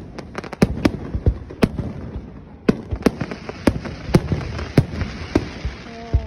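Aerial fireworks shells bursting in quick succession: a dense run of bangs in the first second or two, then a bang about every half second. From about three seconds in there is crackling between the bangs.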